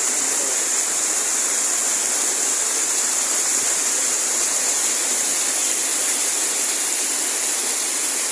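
Steady, even rush of a waterfall dropping more than 100 metres, a constant hiss of falling water.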